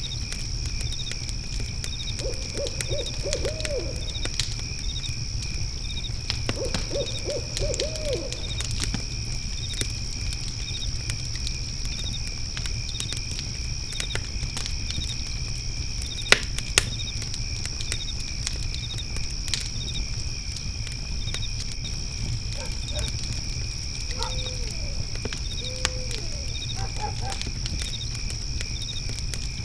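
Backyard fire pit crackling with scattered sharp pops, two loud ones about halfway through, under a steady trilling of crickets that chirp about twice a second. An owl hoots in short runs of notes near the start, about seven seconds in, and again near the end.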